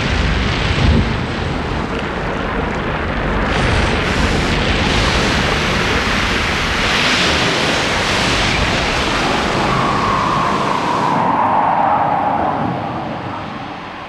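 Soundtrack effects of a rumbling eruption with a rushing, surf-like noise. A held tone joins about ten seconds in, then the noise fades out near the end.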